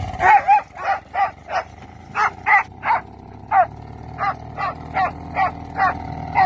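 A dog barking over and over, about two to three sharp barks a second, with a steady low hum underneath that grows louder in the second half.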